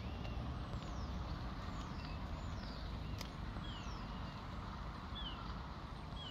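Low steady outdoor rumble with birds calling in short, thin, falling whistles every second or so; a single sharp click about three seconds in.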